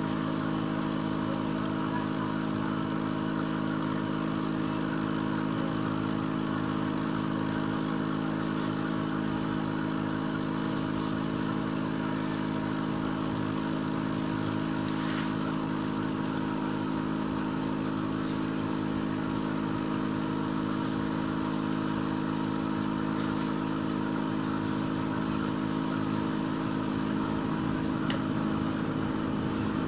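Aquarium air pump humming steadily, a constant droning motor note. A rapid, high pulsing comes and goes over it.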